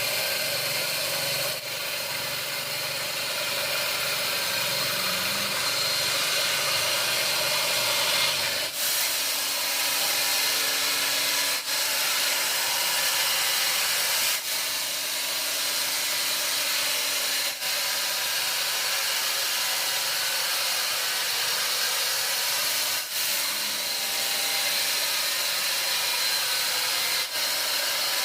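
Sawmill saw running and cutting through wood, a steady hissing machine noise with a high whine. It breaks off abruptly for an instant several times.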